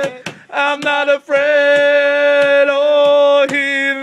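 A man singing a worship song a cappella, holding long wordless notes with short breaks between phrases. Regular sharp clicks keep time under the singing.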